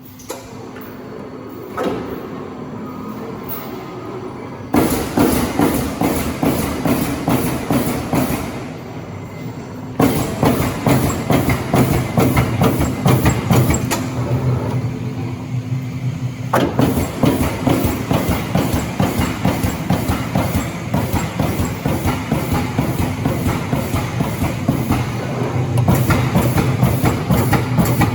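Amada PEGA CNC turret punch press punching sheet metal: long runs of rapid, rattling punch strokes, broken by two pauses in which only the machine's steady hum goes on.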